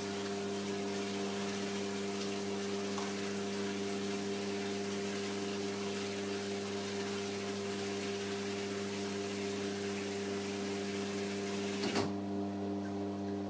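Water running from bath taps into a filling bath, over a steady hum. About twelve seconds in the rush of water cuts off abruptly with a short knock: the Nova-Flo unit has shut off the supply as the water reached the overflow. The hum carries on afterwards.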